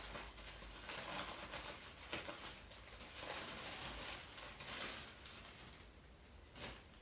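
Thin clear plastic packaging bag crinkling and rustling in irregular bursts as a folded T-shirt is worked open and pulled out, dying down after about five seconds, with one short crinkle near the end.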